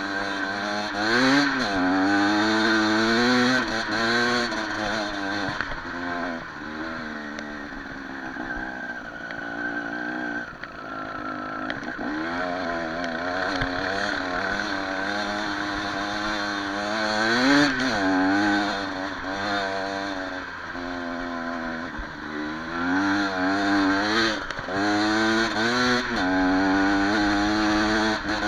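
Enduro motorcycle engine revving up and easing off again and again, its pitch rising and falling with the throttle.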